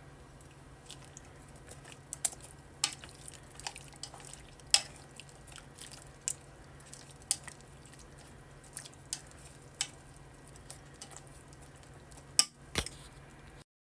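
Wooden chopsticks stirring vegetables in water in a metal saucepan, knocking lightly against the pot in scattered clicks, with two louder knocks near the end. A faint steady low hum lies underneath.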